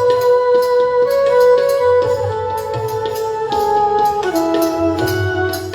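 Instrumental music between sung verses: a melody in long held notes that step down in pitch, over a steady percussion beat and bass.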